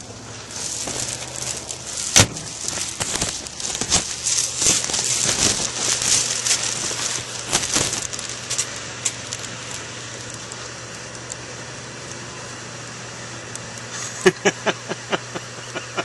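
Microwave oven running with a foil-layered MRE pouch inside: a steady hum under crackling and popping from the foil arcing and burning through. The crackling is dense for the first half, then dies down to the hum, and a quick run of sharp pops comes near the end.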